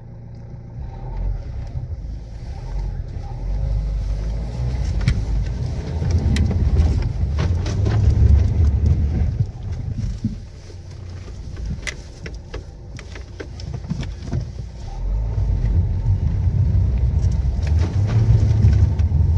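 An off-road 4x4's engine running under load and revving up twice in long pushes as it strains to climb over a rock it is hung up on, with scattered sharp knocks.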